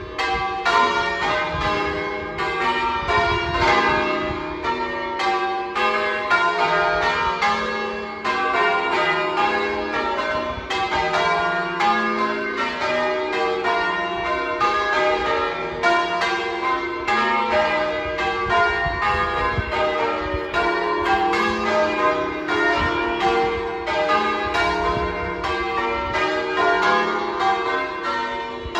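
Church bells being change rung: a continuous, evenly paced run of bell strikes, several a second, each ringing on into the next.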